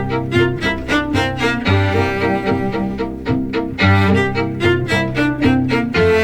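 Background music played on bowed strings, violin and cello, with notes changing in a steady rhythm over a sustained bass line.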